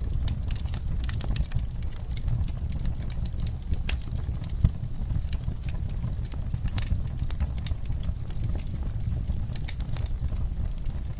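Fire burning in a fireplace, crackling with many irregular sharp pops and snaps over a steady low rumble.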